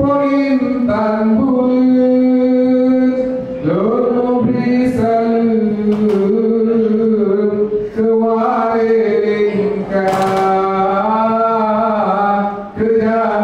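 Vocal chant of a ratoh jaroe dance, sung in long held, sliding notes that step up and down between phrases.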